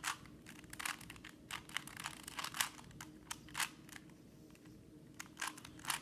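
Rubik's Cube layers being turned by hand: a string of short, irregular plastic clicks and clacks, with a pause of about a second near the end.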